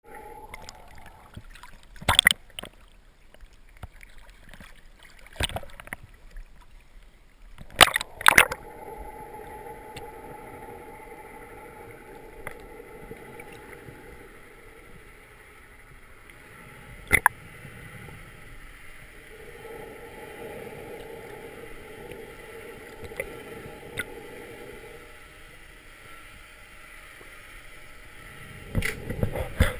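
Underwater ambience picked up through a waterproof camera housing on a speargun: a steady low hiss with a faint hum that comes and goes, broken by several sharp knocks, and a louder low rumbling slosh near the end.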